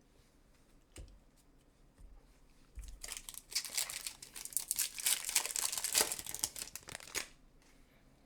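Foil trading-card booster pack being crinkled and torn open, a dense crackling of the wrapper for about four seconds after a couple of soft knocks.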